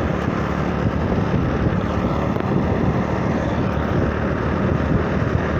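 Steady engine rumble and road noise from a moving vehicle, with wind buffeting the microphone.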